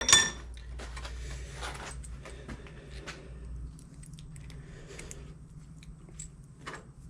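Electric drill boring into a cut-off steel carriage bolt: a sharp click at the start, then the drill runs steadily with grinding noise and scattered clicks, easing off a little after about three and a half seconds.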